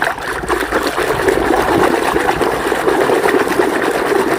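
Water running steadily over a muddy toy vehicle as the mud is rinsed off.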